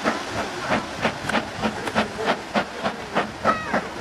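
Steam locomotive working hard as it hauls a train of coaches: sharp exhaust chuffs come about three a second over a steady hiss of steam.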